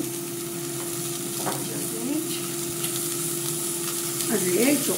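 Onion rings frying in oil in an aluminium saucepan, sizzling steadily as a wooden spoon stirs them, with a steady hum underneath.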